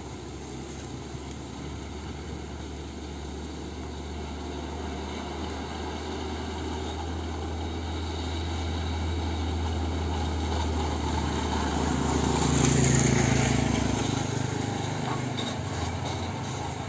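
UD Quester dump truck's diesel engine running with a steady low drone, growing louder as the truck approaches. A motorcycle passes close by about three-quarters of the way through, the loudest moment.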